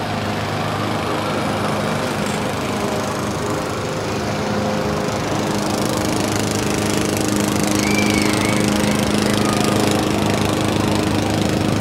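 A steady motor drone with a low hum, getting a little louder about halfway through.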